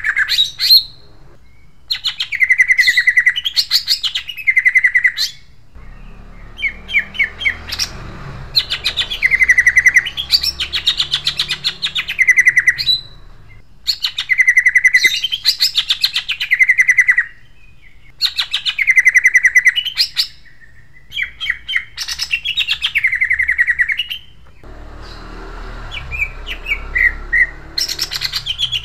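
Caged male green leafbird (cucak ijo) singing loudly in repeated phrases, each a rapid run of sharp notes that swoops down to a held note, with short pauses between them. A harsh, sharp rolling song of the kind kept as a lure to prompt other cucak ijo to sing.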